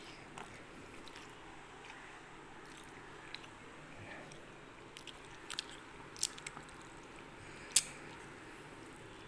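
A person eating rice: quiet chewing and mouth sounds with scattered sharp little clicks, the loudest about eight seconds in.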